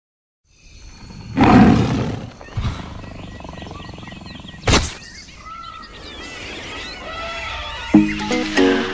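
Animal sound effects for a title sequence: a loud animal roar about a second and a half in, a sharp hit near the middle, and bird chirps over a steady background. Music with a beat begins near the end.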